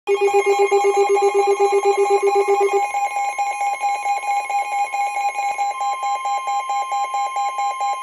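Several weather alert radios sounding their alarms together for a severe thunderstorm warning: overlapping rapid beeping, about five beeps a second, with one of the beep patterns stopping about three seconds in. About halfway through, a steady high tone joins in, the 1050 Hz weather radio warning alarm tone.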